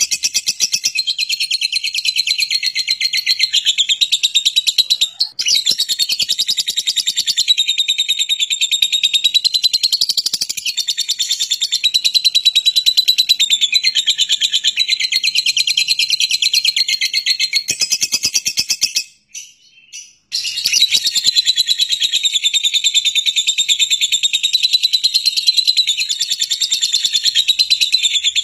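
Fischer's lovebird in a long, fast, high chattering trill, the drawn-out 'ngekek' song; it stops for about a second some two-thirds of the way through, then carries on as before.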